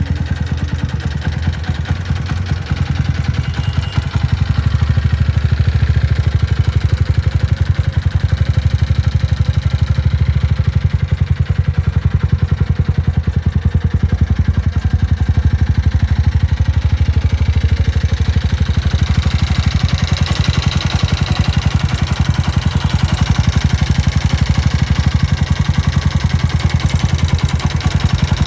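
Jawa 42 motorcycle's single-cylinder engine idling steadily, with the mechanical noise that is given as a bad noise problem. About two-thirds of the way through, a brighter, higher-pitched mechanical noise comes up over the idle.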